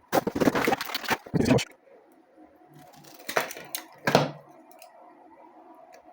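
A burst of rapid crackling and clicking for about a second and a half, then two separate sharp clicks, over a faint steady hum: small objects being handled at a workbench.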